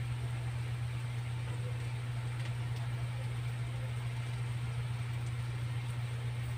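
Steady low mechanical hum with a faint even hiss above it, unchanging throughout.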